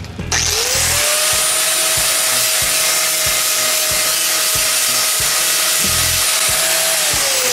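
Handheld electric angle grinder spinning up about a third of a second in and grinding the scale off a quenched spring-steel sample: a steady whine over harsh grinding noise. The motor starts to wind down right at the end.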